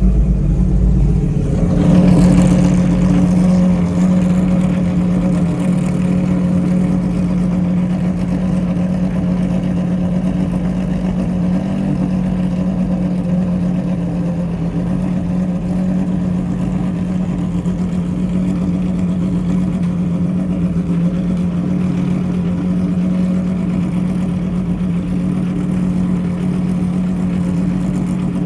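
Pagani Zonda R's Mercedes-AMG V12 engine running at a steady speed, briefly louder about two seconds in.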